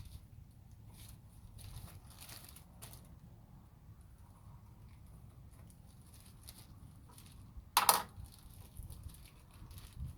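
Packaging of a new ignition coil pigtail being handled and opened: faint rustling and small clicks, with one short, loud tearing noise about eight seconds in.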